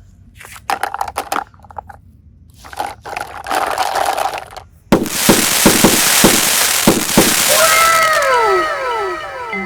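Fireworks-like cartoon sound effects: two stretches of crackling, then about five seconds in a sudden loud hiss with a run of sharp pops, and near the end several overlapping whistle tones that fall in pitch.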